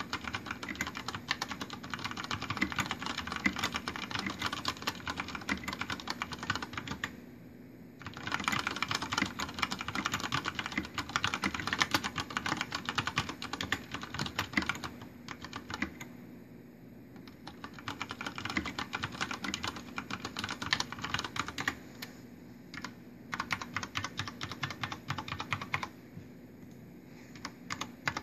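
Fast, continuous typing on a Deck Francium Pro mechanical keyboard with brown switches and PBT keycaps: dense runs of key clacks broken by a few brief pauses.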